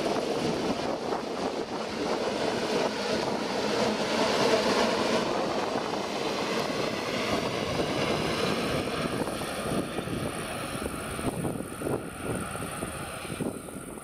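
Narrow-gauge Rhaetian Railway push-pull train of coaches passing close by, pushed by a Ge 4/4 II electric locomotive: a steady loud rumble of wheels on rails, with a high whine gliding lower in pitch. The sound drops away near the end.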